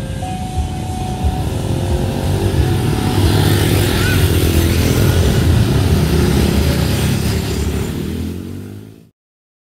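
A crowd of motorcycles and cars moving off over a level crossing: many small motorcycle engines running and revving up as they pull away. The sound fades and cuts off shortly before the end.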